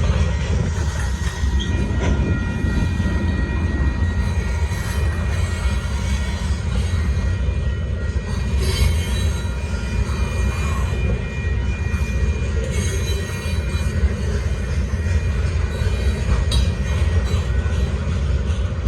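Union Pacific gravel train's freight cars rolling past with a steady low rumble and a thin, high squeal from the wheels.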